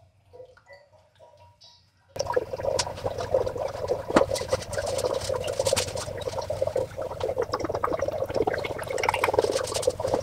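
Automatic transmission fluid pouring from a Toyota Prius C's transaxle drain hole into a drain pan as a steady splashing stream. It starts suddenly about two seconds in, after a few faint small knocks.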